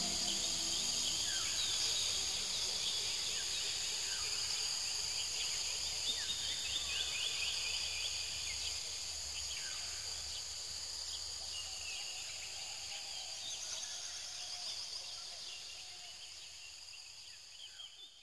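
Nature ambience: many short, quick bird chirps over a steady high-pitched insect hum, the whole fading out near the end.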